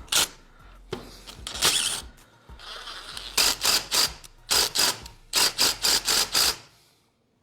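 Socket ratchet clicking in short back-and-forth strokes, loosening the bolts that hold a small engine's recoil starter; a few scattered strokes, then a quick run of about three a second.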